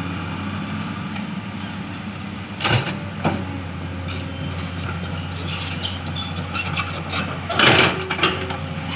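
Komatsu hydraulic excavator's diesel engine running steadily under working load. Two short knocks come about three seconds in, and a louder, noisy burst comes near the end as the bucket comes down to the rocky ground.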